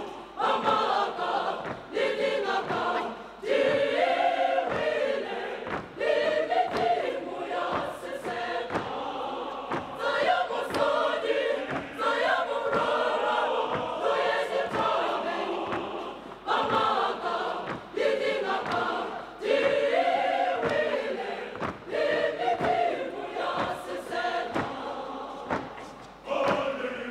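Large mixed youth choir singing in full voice, with a steady percussive beat under the voices.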